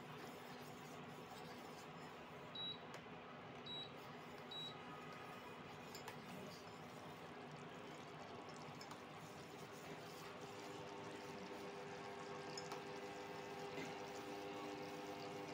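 Sugar syrup bubbling in a steel saucepan on an induction cooktop, stirred with a steel spoon, nearly at one-thread consistency. The cooktop gives three short high beeps about a second apart a few seconds in, and a steady hum comes in from about ten seconds in.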